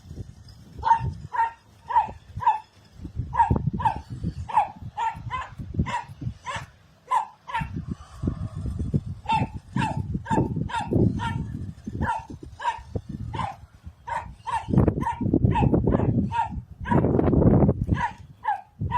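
A dog barking over and over, about two short barks a second, with a low rumbling noise underneath that swells near the end.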